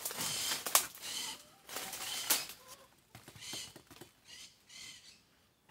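Machete blade scraping and brushing against a banana trunk and dry leaves: a series of short rasping strokes with a couple of sharp clicks, growing quieter in the second half.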